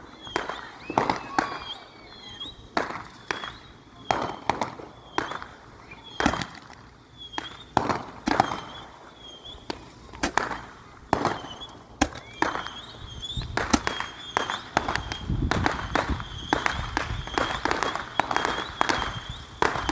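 Fireworks going off: irregular sharp bangs and booms, one every second or so, becoming denser with crackling in the last third. A steady high-pitched tone sits underneath them.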